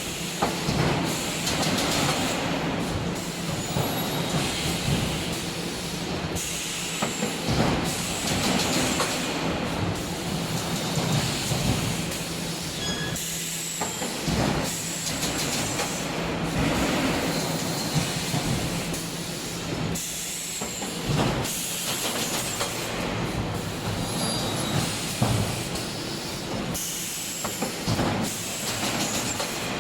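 Wire mesh welding machine running: continuous mechanical clatter with frequent sharp clanks and hiss over a steady low hum.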